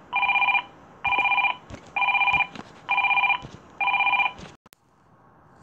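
Phone ringtone: a series of short electronic ring beeps, each with a few steady pitches layered together, about one a second, five times, stopping about four and a half seconds in. A single click follows just after.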